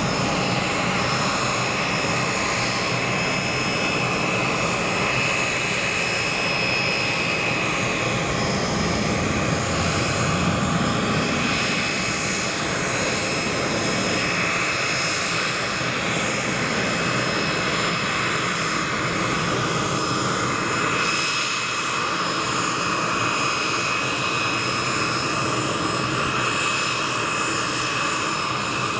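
A 1965 North American Sabreliner 40A's twin turbojet engines running at taxi power: a steady jet whine with several high tones over a constant rush.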